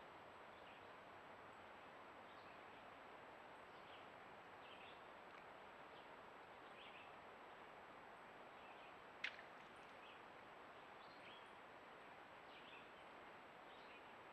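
Near silence: steady hiss from a trail camera's microphone with a thin, steady high tone, faint scattered bird chirps, and a single sharp click about nine seconds in.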